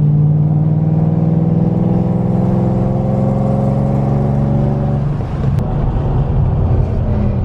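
Car engine running under steady throttle, its pitch climbing slowly, then easing off about five seconds in. Near the end comes one sharp, loud exhaust bang: a backfire pop from the Shelby GT500's exhaust as it spits flames.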